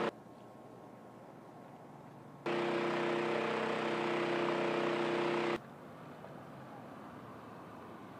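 A steady machine hum with a fixed pitch over a noisy background. It stops abruptly at the start, comes back about two and a half seconds in and cuts off again near the middle, leaving a fainter steady noise.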